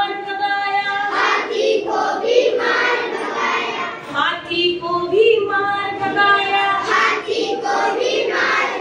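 A group of children singing a Hindi nursery rhyme together in chorus, led along by a woman's voice.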